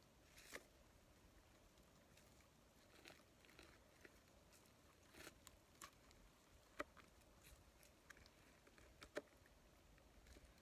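Faint, scattered clicks and crunches of a knife cutting into roasted chicken, about a dozen small sharp ticks, the loudest about seven and nine seconds in, over near silence.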